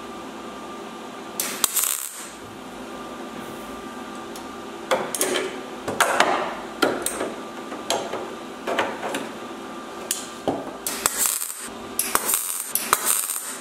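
MIG welder laying spot welds one after another on the car body's sheet steel, each spot a short crackle lasting well under a second. The first comes about a second and a half in, and from about five seconds on they follow one another quickly.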